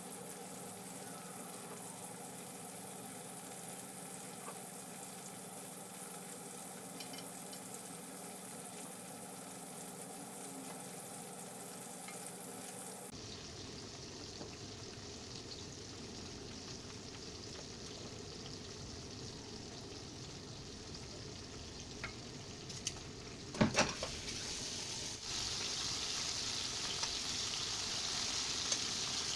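Calamari frying in hot oil, a steady sizzle. A few sharp knocks come about two-thirds of the way through, and after them the sizzle gets louder and brighter.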